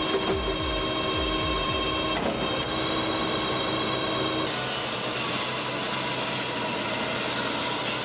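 A powered saw running and cutting wood over steady machine noise. The sound changes abruptly about halfway through, from an even pitched drone to a denser, noisier running sound.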